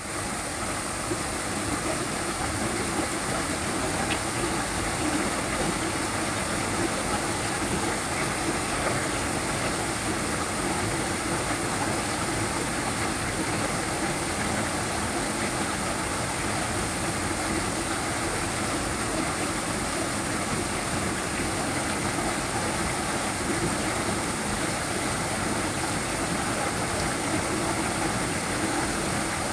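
Small waterfall pouring and splashing in a steady, continuous rush of water.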